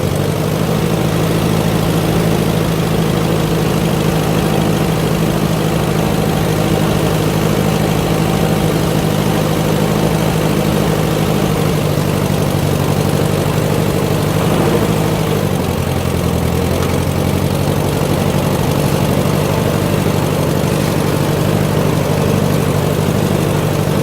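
Massey Ferguson 50 tractor engine running steadily just after starting, its note shifting about two-thirds of the way through.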